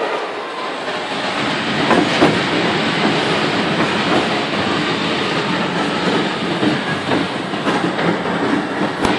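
Roller coaster car running along its track: a continuous rumble and rattle of the wheels, with a few sharp knocks. It gets louder over the first couple of seconds.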